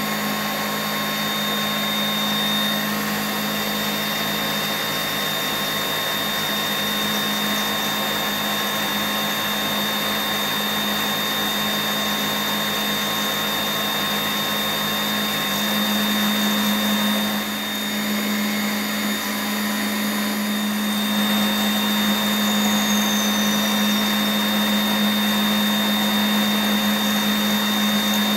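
Deckel FP2A CNC milling machine's geared spindle running while an end mill cuts a metal part held in the A-axis rotary chuck: a steady mechanical hum with cutting noise over it, dipping briefly a little past halfway.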